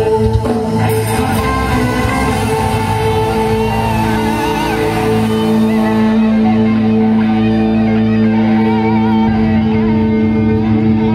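Live music through a concert PA, heard from within the crowd: sustained held chords with a wavering melody line coming in about four seconds in.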